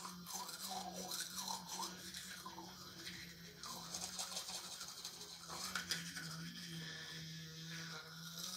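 Battery-powered toothbrush buzzing steadily while brushing teeth, its hum changing in tone as the brush moves around the mouth.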